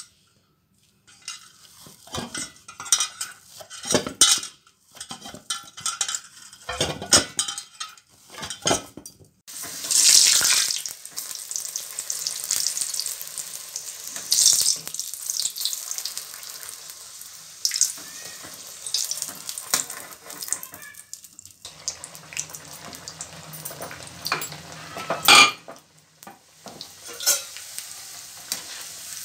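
For the first several seconds, dough being kneaded by hand in a bowl: scattered soft knocks and rubs. From about ten seconds in, rounds of dough deep-frying in hot oil in a kadhai: a steady sizzle, with a ladle stirring and knocking against the pan.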